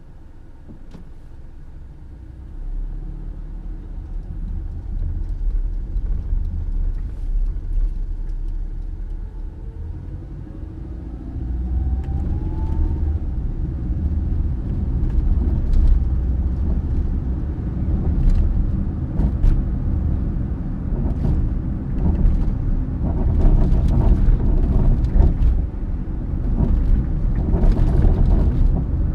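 Toyota Passo (QNC10) running, with a low rumble that grows louder about two seconds in and again about eleven seconds in, and scattered rattling clicks that come more often toward the end. This is the abnormal rattling and droning noise that the car has developed.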